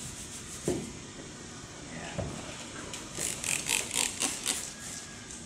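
Hand trigger spray bottle squirting clay-bar lubricant onto car paint: about six quick squirts in a row, starting about three seconds in. A soft thump comes a little under a second in.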